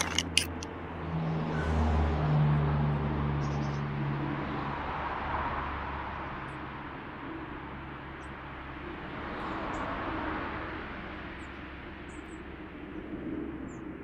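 Road traffic going by: one vehicle swells up and fades a couple of seconds in and another passes about ten seconds in, over a steady low hum.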